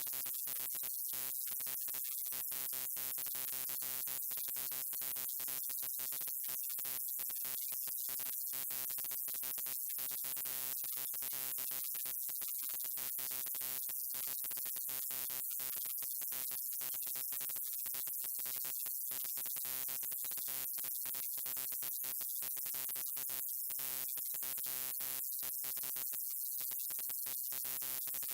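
Neon light's electrical buzz: a steady hum with many overtones over a high hiss, stuttering with frequent split-second dropouts.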